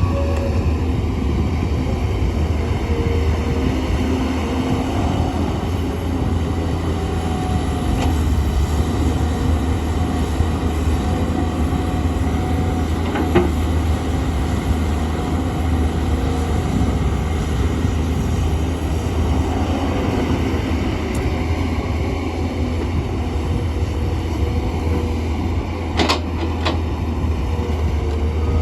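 Tata Hitachi hydraulic excavator's diesel engine running steadily with a deep rumble, with a sharp clank about halfway through and another near the end.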